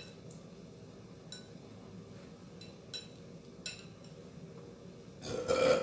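A few light, separate clinks of chopsticks and utensils against bowls and the hotpot, then a short, louder burst of noise near the end.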